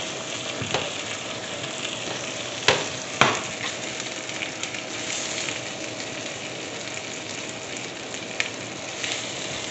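Chicken leg pieces sizzling in oil in a frying pan, a steady hiss. Metal tongs clack sharply against the pan a few times, loudest twice around three seconds in.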